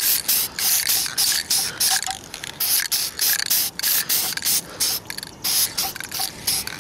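Aerosol spray-paint can hissing in quick short bursts, about three a second with a couple of brief pauses, as flat black is put on in light coats.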